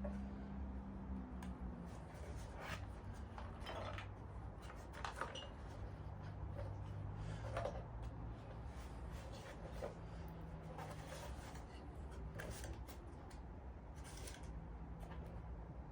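Scattered small clicks, taps and rustles of parts and packaging being handled by hand, over a steady low hum.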